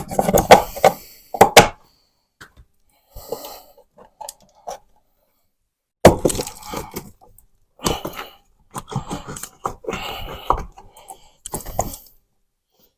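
Sharp cracks, knocks and scraping as a telephone wall box is pried and worked out of a drywall opening, its nail bracket catching. The noise comes in two spells, with a lull of about four seconds between them.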